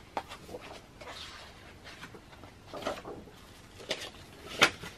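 Pages of a photobook turned by hand: paper rustling and flipping, with a sharp slap of a page or cover near the end.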